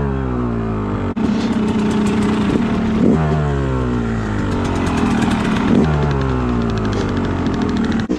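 2013 Yamaha YZ250 two-stroke single-cylinder dirt bike engine running under way. Its pitch surges and drops about three times as it is ridden off.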